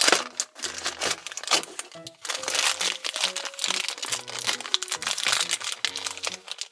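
Black plastic blind bag crinkling as hands pull it from a toy carrier and work it open, with a sharp crackle right at the start. Background music plays throughout.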